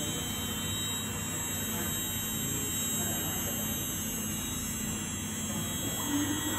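Five-axis mini CNC machine on a dry run, with no cutting. Its stepper-motor drives give a steady electrical whine and hum of several held tones as the axes move. A short extra tone comes in about six seconds in.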